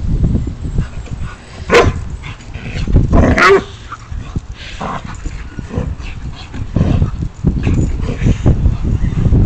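Alaskan Malamute gives a few short barks and yips while playing, the loudest about 2 and 3.5 seconds in, over a steady low rumble.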